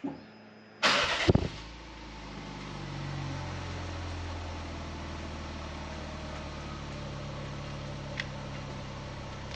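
An engine starting with a short, loud burst about a second in, then running steadily at idle.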